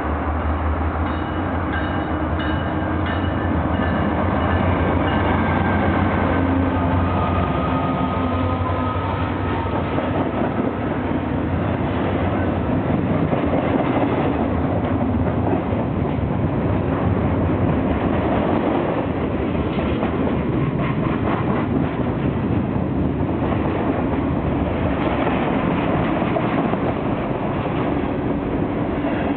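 A diesel-hauled intermodal freight train passes. A low engine rumble from the locomotives is strong for the first several seconds. After that, container and trailer flatcars roll by with a steady rumble and wheels clicking over rail joints.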